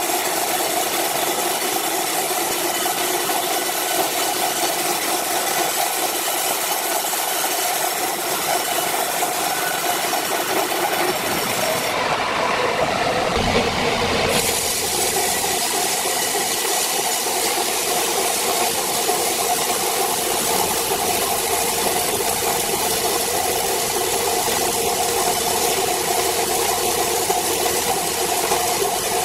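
Horizontal band sawmill running steadily, its blade sawing through thick wooden boards with a continuous rasping machine noise. The sound shifts briefly about twelve seconds in, with a low thump, then the saw runs on.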